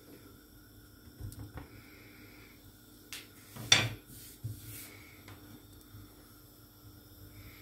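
Frying pan on a gas hob knocking and clattering: a few light clicks and one sharp, loud metallic knock a little under four seconds in.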